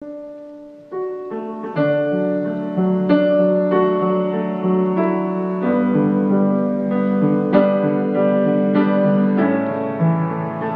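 Grand piano playing the opening of a hymn tune: a slow melody over sustained chords, with a fresh note or chord struck about every half second from about a second in.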